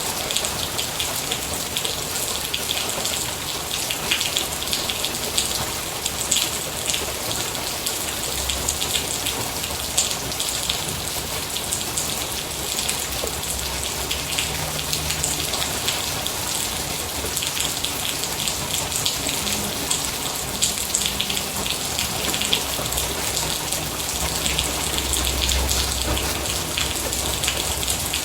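Rain falling steadily, with dense individual drops ticking sharply on a surface.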